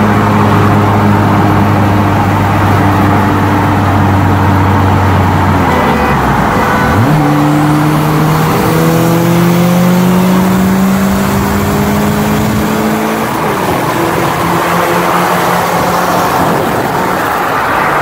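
Car engines in a roll race, heard from inside a car: a steady cruising note, then about six seconds in the engine drops and surges as it goes to full throttle, pitch climbing steadily until it backs off about thirteen seconds in, with road and wind noise throughout.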